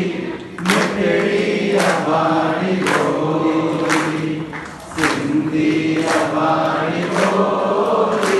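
Many voices singing together in held notes, like a crowd or choir singing along, with a strong beat about once a second.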